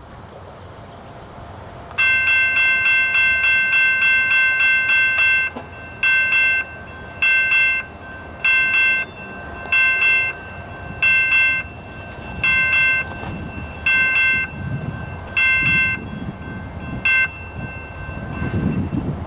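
Electronic railroad crossing bell with an odd ring: it starts about two seconds in dinging rapidly, about four strikes a second, then breaks into short bursts about once a second before stopping near the end. A low rumble builds in the last few seconds.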